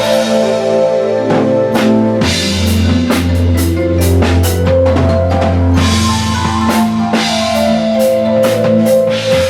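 Drum kit jam: drums and many cymbals played in a busy groove over sustained pitched notes with a steady bass line.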